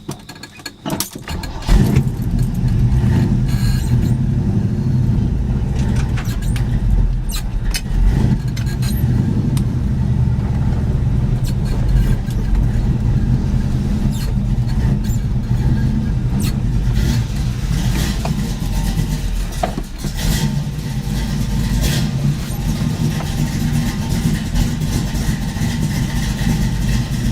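Vehicle engine on a lukewarm start: a brief moment of cranking, then it catches about two seconds in and settles into a steady idle.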